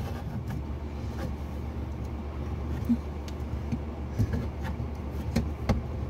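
Scattered sharp clicks and snaps of a blue plastic PEX pipe cutter being worked on PEX tubing, the strongest two near the end, over a steady low hum.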